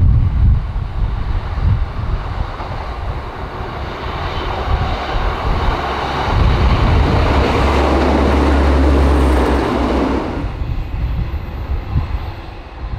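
Class 156 diesel multiple unit passing close below, the rumble of its underfloor diesel engines and wheels on the rails building to a steady low drone. The drone cuts off suddenly near the end, leaving gusty wind rumble on the microphone.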